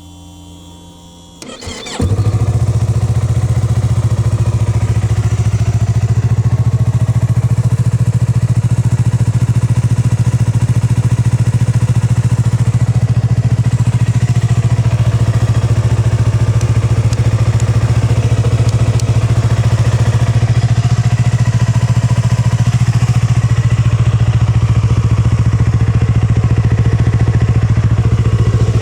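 Yamaha YZF-R25's parallel-twin engine with a Yoshimura Cyclone silencer catching on the first press of the electric starter about two seconds in, then idling steadily.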